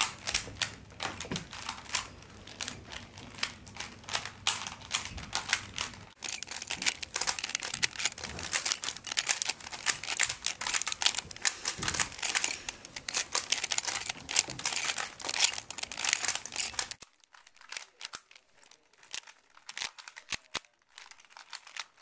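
Rubik's cubes being twisted fast by hand: a rapid, irregular clatter of plastic layers clicking as they turn. It gets noticeably quieter for the last few seconds.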